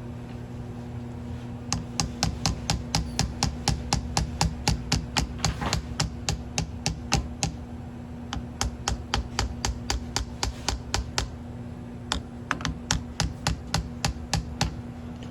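Rapid, even clicking, about four small clicks a second, in three runs with short pauses between them, as the Honda ATC gas cap is worked apart by hand. A steady low hum runs underneath.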